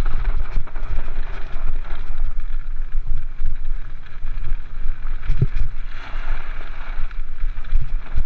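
Mountain cart rolling fast down a gravel track: a loud, continuous rumble of wheels on gravel mixed with wind buffeting, muffled by a GoPro's waterproof housing. There is a thump from a bump about five seconds in.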